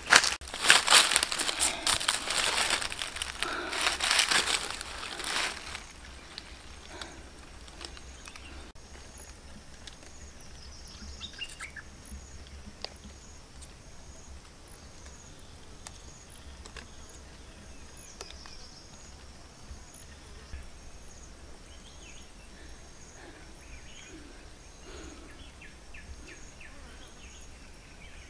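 Footsteps crunching and rustling through dry leaves and undergrowth for about the first five seconds, then quiet forest background with a short high chirp repeating about once a second.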